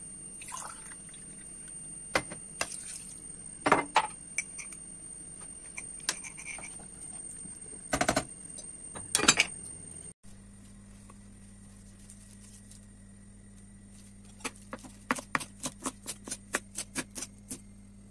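Liquid poured from a glass into a pot of vegetables, followed by scattered knocks and clinks of cookware as a glass lid goes on the pot. Later, a knife chopping fresh parsley on a wooden cutting board, a quick run of about a dozen chops near the end.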